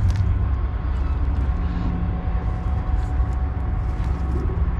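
Wind buffeting the microphone: a loud, uneven low rumble that runs on steadily.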